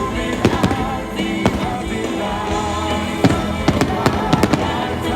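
Aerial fireworks bursting in quick succession, a dense string of sharp bangs and cracks, over the music of a pyromusical display with sustained, wavering melody notes.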